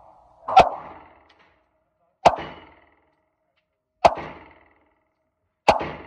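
Four shots from a Glock 23 .40 S&W pistol, fired at a steady pace about one and a half to two seconds apart. Each is a sharp crack with a short echo off the walls of an indoor range booth.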